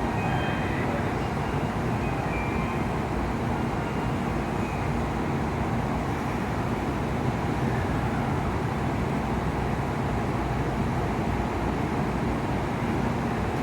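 Steady rumble and hum of Shinkansen trains at a station platform, even throughout, with no distinct knocks or announcements.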